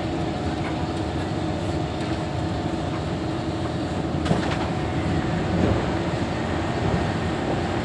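Steady hum of a Kawasaki Heavy Industries C151 metro car's air-conditioning and auxiliary equipment while the train stands at a station platform, with a single sharp click about four seconds in.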